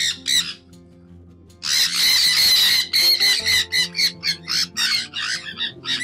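A flock of sun conures screeching: two short calls at the start, then a dense burst of harsh screeches from about a second and a half in that breaks into a rapid run of short squawks. Soft background music plays underneath.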